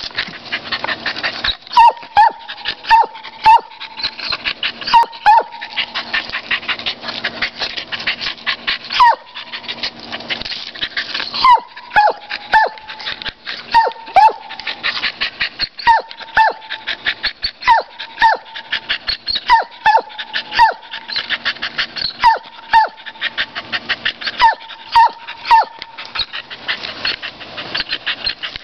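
Dog barking at a squirrel up a tree: short, sharp barks that drop in pitch, coming in clusters of two to four with short pauses between, again and again.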